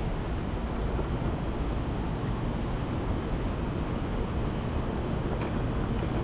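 Steady outdoor city noise, mostly a low rumble of road traffic.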